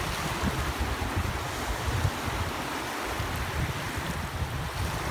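Small surf waves washing in over shallow water at the water's edge, a steady wash, with wind buffeting the microphone in gusty low rumbles.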